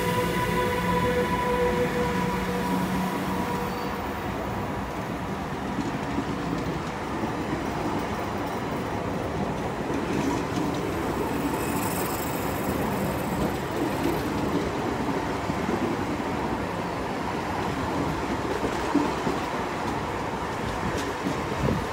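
An EL18 electric locomotive hauling an SJ Nord passenger train past on departure. The locomotive's steady electric whine fades over the first few seconds as it moves on, then the coaches roll by with a steady rumble of wheels on the rails.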